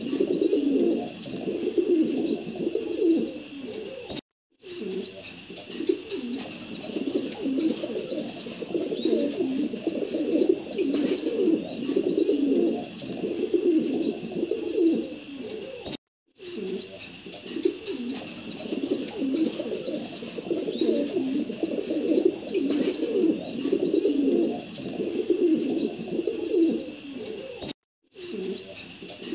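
Domestic pigeons cooing continuously in many overlapping coos, with high chirping notes above them. The sound cuts out briefly three times, about twelve seconds apart.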